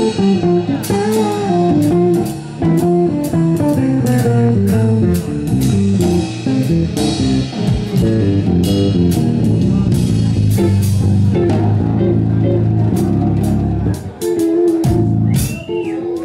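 Live jazz trio of electric guitar, bass and drum kit. The guitar plays quick single-note runs over a walking bass line while the drums are played with sticks, with frequent cymbal and drum hits.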